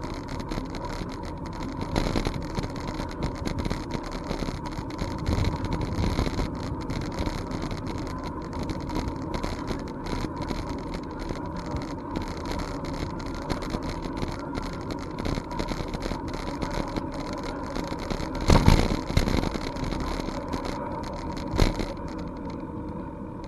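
Bicycle rolling along a trail: wind on the microphone and steady tyre and frame noise, with many small rattling clicks throughout and two heavier thumps late on.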